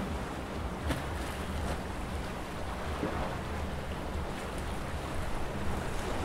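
Calm sea water lapping and washing against shoreline rocks, a steady wash with a low rumble underneath and small splashes about a second in and about three seconds in.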